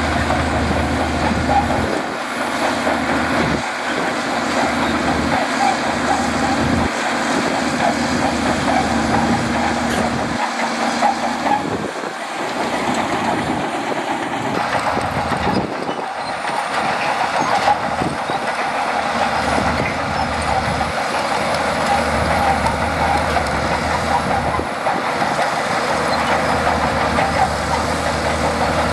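Shantui DH17C2 bulldozer's diesel engine running under load as it pushes sand, a loud steady mechanical drone with a faint high whine, the low end dipping and swelling every second or two.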